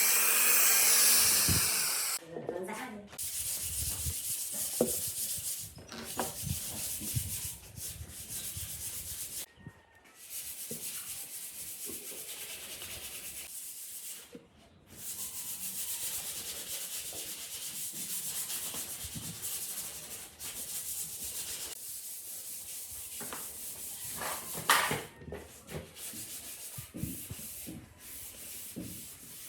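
A power tool runs for about the first two seconds and then stops. After that comes a steady scratchy hiss of sanding on wood, in long strokes with brief pauses.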